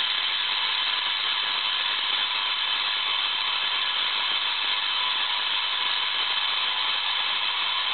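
Spark gap Tesla coil running, its spark gap firing in a loud, even buzz that holds steady while streamers discharge from a neon flicker bulb on the coil's top.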